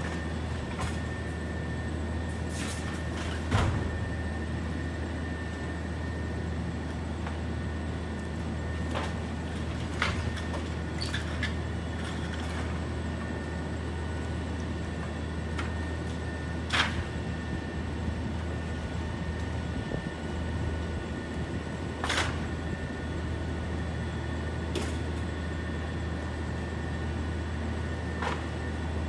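Rear-loader garbage truck running steadily, a low engine hum with a thin high whine over it, broken by occasional sharp clanks and knocks.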